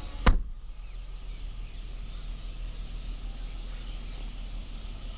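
A Tata Tigor's rear door being shut: one sharp thump about a third of a second in. A steady low background hum runs under it.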